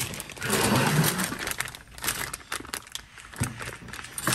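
Plastic zip-top bag full of metal flatware being handled, crinkling, with light clicks and clinks of the cutlery and of spoons on the table.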